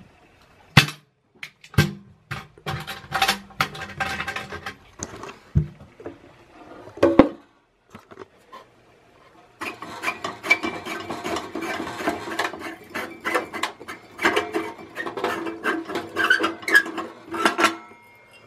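Clicks and knocks as the sheet-metal housing of a high-pressure sodium flood light is handled and opened. From about ten seconds in, a long run of scraping and clinking as the glass HPS bulb is unscrewed from its screw-in socket.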